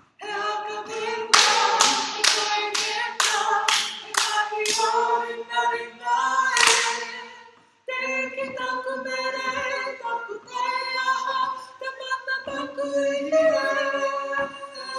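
Kapa haka group of mixed voices singing a Māori action song (waiata-ā-ringa) in unison, with sharp hand strikes in time, about two a second, for a few seconds near the start and one more about halfway. The singing breaks off briefly about halfway through and starts again.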